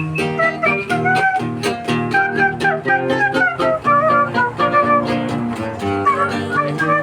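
Instrumental break of a bolero ranchero song, with no singing. Plucked guitars keep a steady rhythm under a lead melody line.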